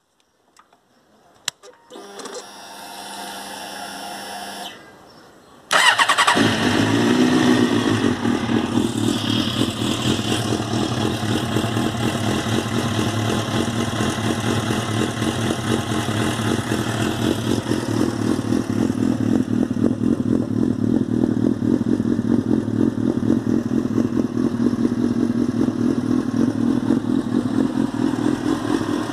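A 2005 Suzuki GSX-R 750 inline-four motorcycle being started. A couple of clicks and a steady hum for about three seconds come first, then the engine catches about six seconds in. Its revs briefly swing and settle, and it idles steadily after that.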